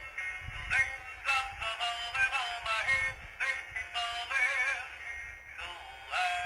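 Polyphonic (64-voice) ringtone of a Pantech&Curitel PG-L1200 folder phone playing a synthesized melody through the phone's speaker. It moves in short, quick notes, with a warbling vibrato on a held note about four seconds in.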